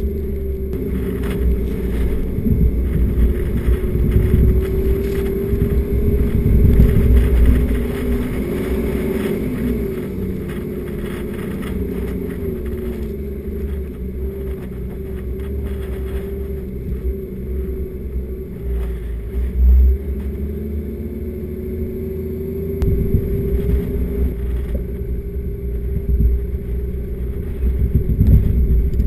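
Four-wheel drive vehicle driving on a sand track: an engine drone that rises and falls with speed, over a heavy low rumble, with a short louder bump about two-thirds of the way through.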